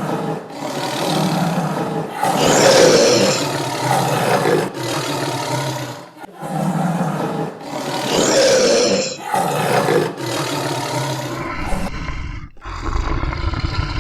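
Tiger roaring and growling in long, rough calls, the loudest about three seconds in and again about six seconds later. Near the end it switches to another recording with a deep low rumble.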